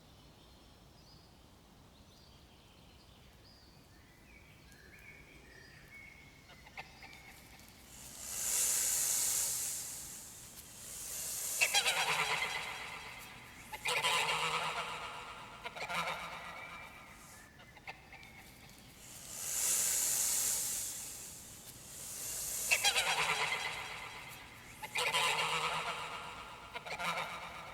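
Canada geese honking in bouts of repeated calls, each bout about two seconds long, starting about eight seconds in. A rushing, hiss-like noise comes just before each run of honks. Faint small chirps come earlier, before the honking begins.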